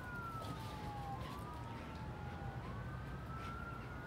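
A siren wailing, its pitch sliding slowly down and up in long sweeps, over a steady low rumble of background noise.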